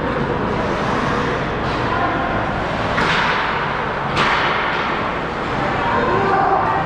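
Ice hockey play in a rink: two sharp cracks of stick and puck, about a second apart, each with a short echo, over a steady rink hubbub.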